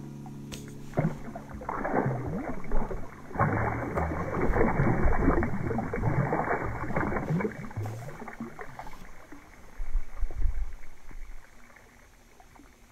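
Water splashing and sloshing in uneven surges, fading out near the end.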